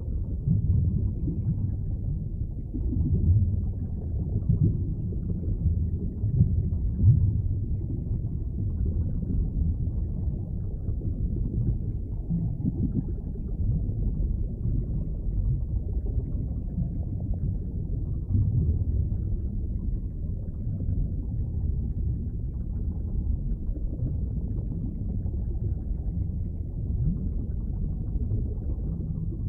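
Underwater ambience: a steady, muffled low rumble of moving water that swells a little now and then, loudest about 3 and 7 seconds in.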